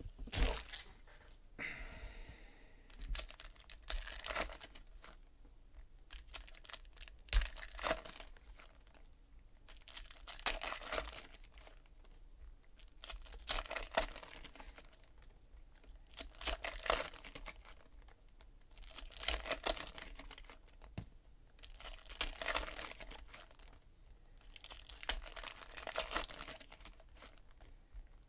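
Shiny plastic-foil wrappers of 2017 Donruss Optic Baseball card packs crinkling and tearing as they are ripped open by hand, with cards handled in between. The crinkling comes in bursts every two to three seconds.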